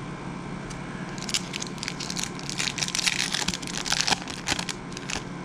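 Silver foil wrapper of a 2012 Topps football card pack being torn open and crinkled by hand: a dense run of crackles starting about a second in and stopping just before the end.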